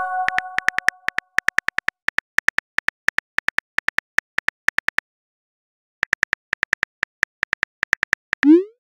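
Simulated phone keyboard clicks typing a text message, about seven a second, with a pause of about a second midway. A bell-like message chime rings out at the start, and a short rising swoosh of a message being sent comes near the end.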